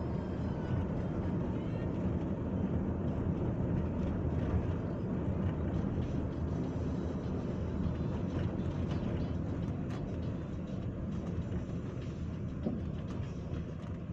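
Steady road and engine rumble of a moving vehicle travelling along a highway, heard from inside the cabin.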